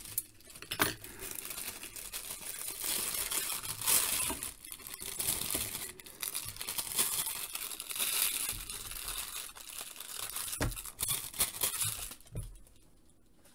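Scissors snipping through a sealed wrapping bag, then the thin wrapping crinkling and rustling as it is pulled open and handled, with a few sharp clicks along the way. The crinkling dies down near the end.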